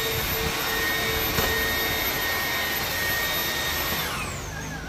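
Cordless stick vacuum cleaner running on a floor, a steady whirring hiss with a high whine. Near the end the whine drops in pitch and the sound gets a little quieter.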